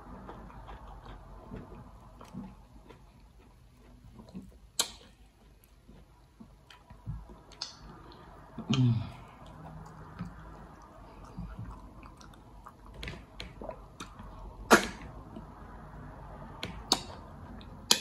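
Close-up eating sounds of slimy okra and egusi soup eaten with the fingers: wet chewing, lip smacks and finger sucking, with a few sharp smacks. A short hummed "mm" falls in pitch about nine seconds in.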